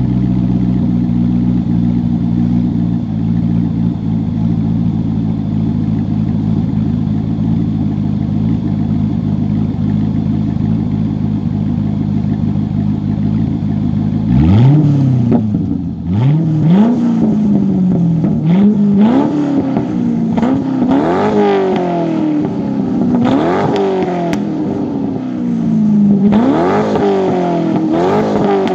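C5 Corvette's 5.7-litre LS V8 running through a muffler-delete exhaust with an X-pipe. It idles steadily for about the first half, then is revved about six times in blips that rise quickly and fall back.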